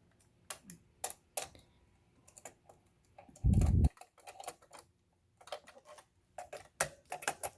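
Irregular clicks and light taps of a monogrammer attachment being fitted onto a Kenmore 158.1660 sewing machine's presser bar, with one louder dull thump about halfway through.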